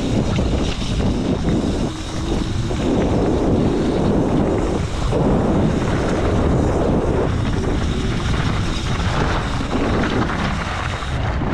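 Wind buffeting the microphone: a loud, steady low rumble with brief dips about two and five seconds in.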